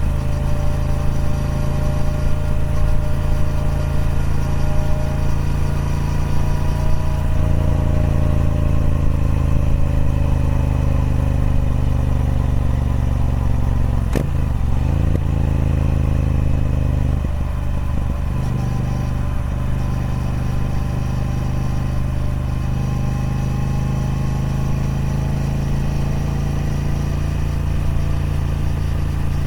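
Triumph Speed Twin 1200's parallel-twin engine running through its stock exhaust, its pitch slowly falling and then rising again. A sharp click about halfway through, with brief breaks in the engine note just after.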